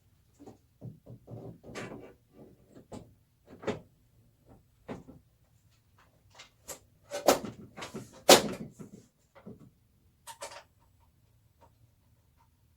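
A PC case's back side panel being fitted and pushed shut: a string of small knocks and scrapes. The two loudest knocks come about seven and eight seconds in.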